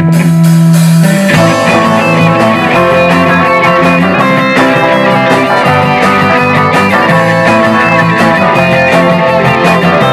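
Instrumental rock music led by guitars, with bass and drums keeping a steady beat.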